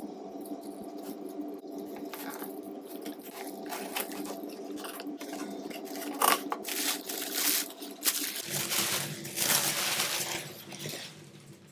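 Brown kraft packing paper crinkling and rustling as it is pulled out of a cardboard shipping box, loudest in the second half. Underneath is a steady drone of sustained low tones that shifts about two-thirds of the way through.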